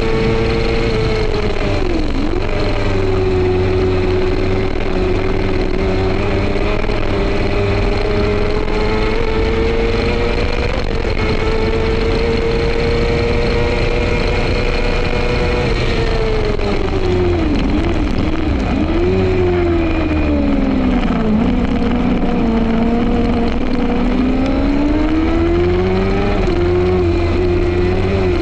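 F2 racing sidecar's engine at high revs from on board, with steady wind rush. Its pitch climbs steadily for long stretches, with a quick dip early, then falls and dips several times in a row past the middle, as when braking and changing down for a corner, before climbing again.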